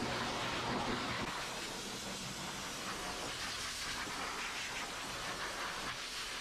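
High-velocity dog grooming dryer blowing a steady rush of air through its hose and nozzle into a doodle's thick curly coat.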